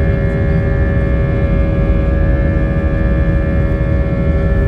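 Airliner cabin noise during the climb after takeoff: a steady engine drone with a low rumble and several constant high tones over it.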